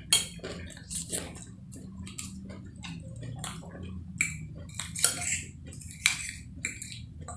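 Spoon and fork clinking and scraping on a plate while eating siomay, a few sharp clinks standing out among lighter scrapes and taps.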